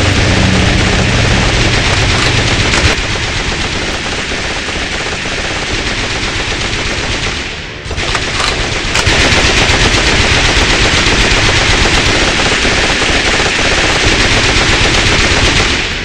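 Sound-effect machine-gun fire, rapid and continuous, dipping briefly about eight seconds in. Under it for the first three seconds runs a low steady aircraft engine drone.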